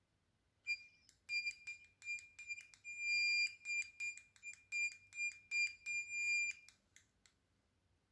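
Piezoelectric buzzer beeping in a high tone, switched on and off in an uneven run of short and long beeps, with a click at the start of many of them, for about six seconds from about a second in. It is keyed by a laser pointer falling on a light-dependent resistor in series with it, sending Morse code.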